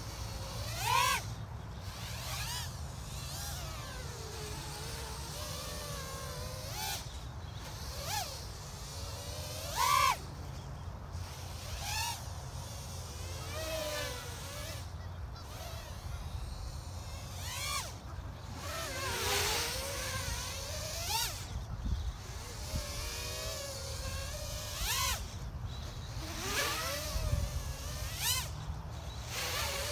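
Small 3-inch FPV quadcopter on 3S, with 1105 6000kv brushless motors and Gemfan 3025 props, whining as it flies acro passes; the pitch rises and falls with throttle and as it sweeps past. The closest, loudest passes come about a second in and about ten seconds in, over a steady low rumble.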